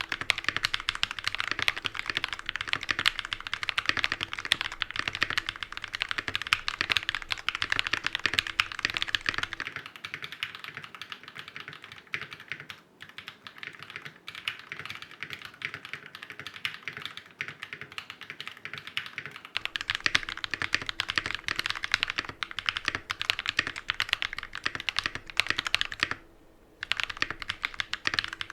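Typing test on a Feker FK68T hot-swap mechanical keyboard with lubed Akko Rose Red linear switches: a fast, dense run of keystrokes. It is softer from about ten seconds in to about twenty, and breaks off briefly near the end.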